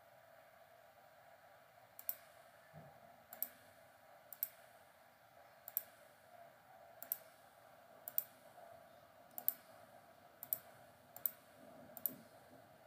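Computer mouse clicking, one sharp click about every second, a few in quick pairs, over a faint steady background hum. Each click places a point of a polygon being drawn on a map.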